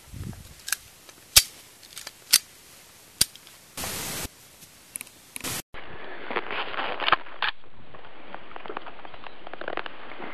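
AR-15 rifle firing single shots, about five irregularly spaced reports in the first three seconds. After a cut, a patch of crackling clicks follows.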